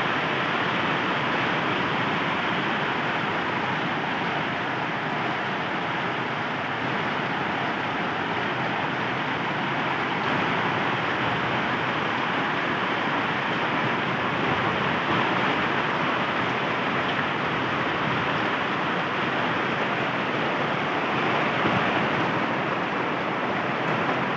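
Rain falling steadily: an even, continuous hiss of rainfall.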